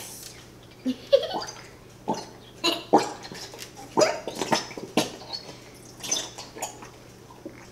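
Squeeze bottle of dollar-store glue sputtering as the last of the glue is forced out: a string of short, squelching spurts that sound like fart noises, irregularly spaced about one or two a second.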